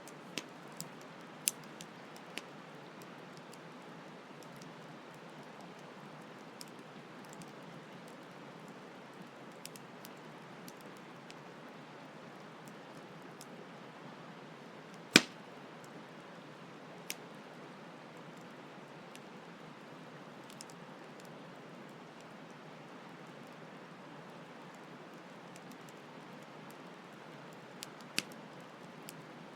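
Campfire crackling, with a few sharp pops scattered through it, the loudest about halfway through. Under it runs the steady hiss of a gently flowing stream.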